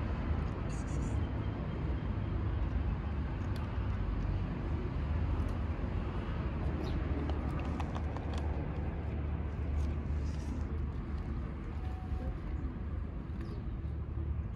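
Outdoor street background: a steady low rumble, with a few light clicks and taps in the middle.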